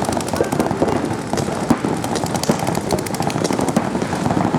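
Several electronic paintball markers firing rapid strings of shots at once, many overlapping pops several times a second.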